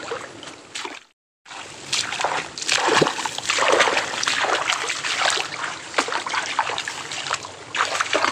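Shallow muddy swamp water splashing and sloshing irregularly, with many short splashes. The sound cuts out completely for a moment about a second in.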